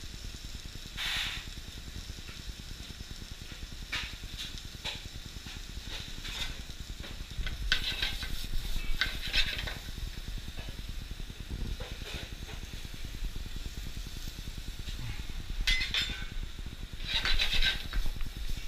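Tuna steak searing on a gas grill and vegetables frying in a sauté pan, a steady sizzle over the low rumble of the burners, with a few louder bursts of sizzling and pan clatter, the longest near the end.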